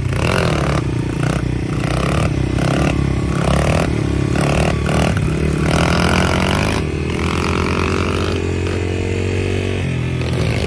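Honda XR100 dirt bike's small single-cylinder four-stroke engine revving in quick repeated blips, then held at a steady, slowly climbing pitch, dropping back just before the end.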